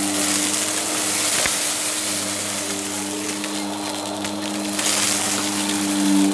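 Bissell upright bagless vacuum cleaner running over a rug strewn with confetti, with a steady motor hum under the rush of air.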